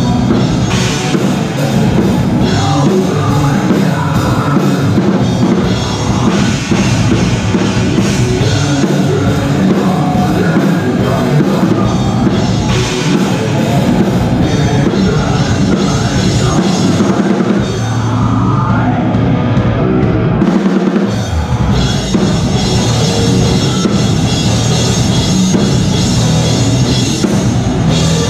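Live metal band playing at full volume, heard from right over the drum kit: fast drumming with cymbals up front over distorted guitars and bass. About eighteen seconds in, the cymbals drop away for a moment under a held low note, and the full band comes back in about three seconds later.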